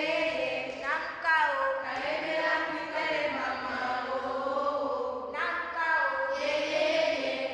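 A group of children singing or chanting together in unison, several voices on a sung line, with held notes and a new phrase starting about a second in and again near the end.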